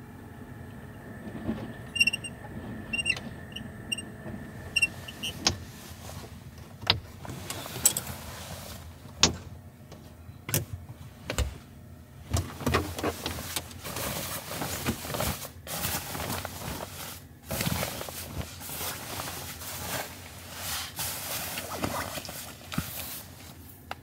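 Handling sounds inside a car: a few short high beeps in the first few seconds, then sharp clicks and knocks as a blackout window shade is pressed into the frame of a rear side window. After that comes a long stretch of rustling fabric as bedding in a mesh bag is handled.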